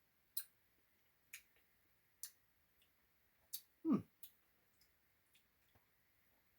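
Eating ice cream with a spoon: scattered sharp clicks, roughly one a second, with one louder, short, low sound that slides down in pitch about four seconds in.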